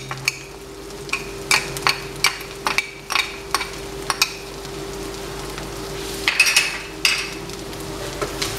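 Brain masala frying in oil in a wok with a steady sizzle. There is a run of sharp taps while spices are shaken in, then a wooden spatula stirs and scrapes the pan near the end.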